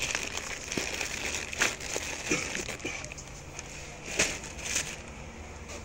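Plastic grocery packets and a cardboard carton rustling and crinkling as they are handled, with irregular sharp crackles, the loudest about a second and a half in and again near four seconds.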